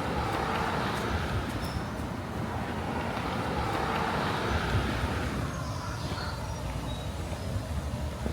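City street traffic: a vehicle passes, its engine and tyre noise swelling, then dropping in pitch as it goes by.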